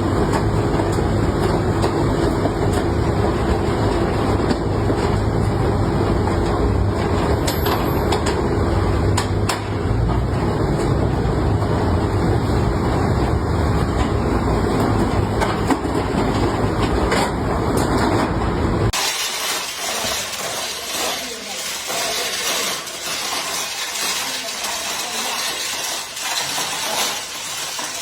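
Motorized rolling steel door running, a steady rattling rumble with a motor hum. It cuts off abruptly about nineteen seconds in, leaving a lighter clatter.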